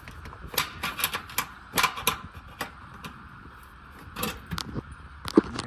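Metal clicks and clinks of a small 8 mm wrench working the bolt that holds a washing machine's ground wire, in irregular clusters.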